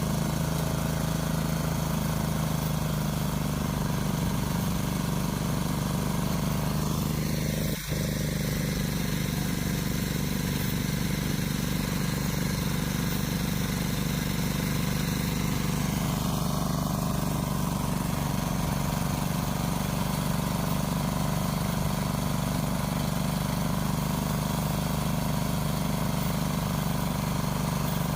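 Small engine running steadily at a constant speed, with a brief dip in sound about eight seconds in.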